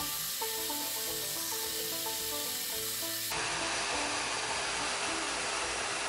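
Background music, a melody of short notes, over the steady hiss of a portable bandsaw cutting Kydex sheet. About three seconds in the noise changes abruptly and becomes a little louder and steadier.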